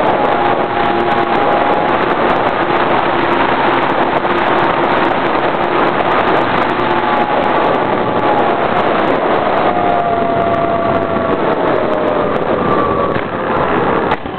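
RC model airplane's engine running, picked up by an onboard camera, with wind rushing over the microphone. The engine's pitch wavers and falls slowly in the second half, as if throttled back, and the sound dips briefly near the end.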